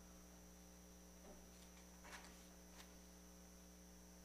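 Near silence: a steady electrical mains hum in the recording, with a few faint brief sounds.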